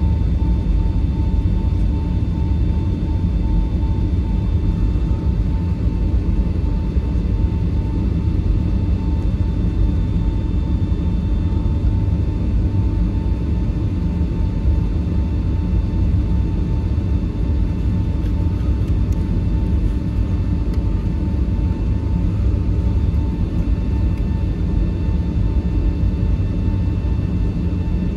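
Boeing 757-300 cabin noise while taxiing: a steady low rumble with the engines' even whine at idle, no rise in power.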